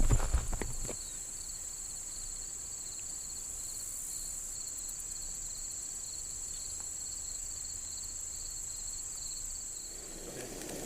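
Insect chorus: one steady high buzz with a lower, rapidly pulsing trill beneath it. There are a few handling knocks in the first second, and a low hiss comes up near the end.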